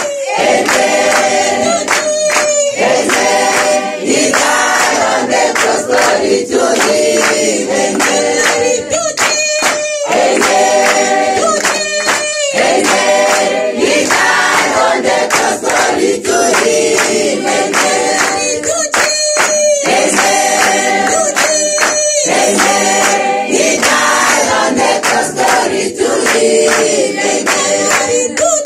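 Church congregation singing a gospel chorus together, with hands clapping along.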